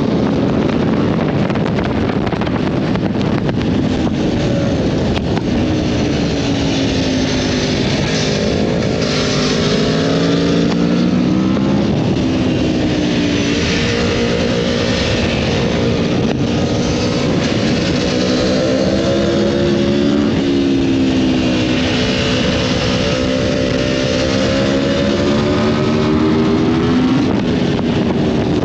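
A sport motorcycle's engine running hard on the road, its pitch climbing and then dropping back several times as it pulls through the gears and eases off. Wind rushes over the microphone throughout.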